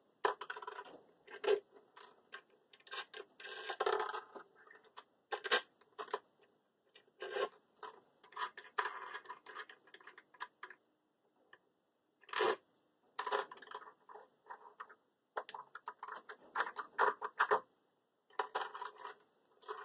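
Metal nuts and washers being unscrewed and taken off a lapidary machine's mounting bolts: irregular small metallic clicks, clinks and scrapes, with short pauses between them.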